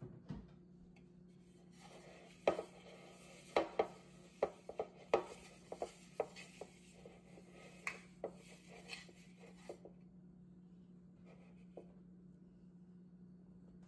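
Fingers rubbing oil around the inside of a mixing bowl: a rubbing hiss with a string of irregular light knocks against the bowl, stopping about ten seconds in.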